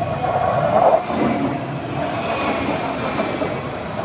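Stuttgart Stadtbahn light-rail train running past at close range: a steady rolling noise of wheels on track with a mid-pitched hum, loudest about a second in.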